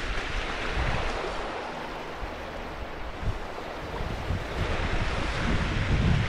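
Wind buffeting the microphone in uneven low gusts over a steady rushing hiss, easing off in the middle and building again near the end.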